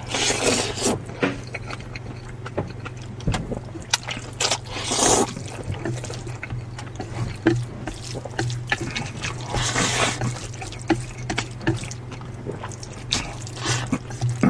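A person slurping noodles, about four long wet slurps. Between them, chopsticks click and scrape against a metal pot.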